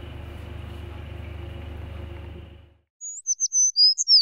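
A steady low hum cuts off about two and a half seconds in. After a brief silence a bird chirps rapidly: a quick string of short, high tweets, several sliding downward, louder than the hum.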